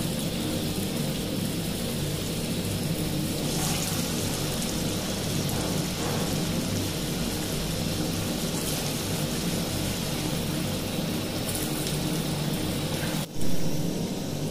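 Green-banana kofta balls deep-frying in hot oil in an aluminium kadai: a steady sizzle and bubbling. Near the end it drops out for an instant and comes back louder.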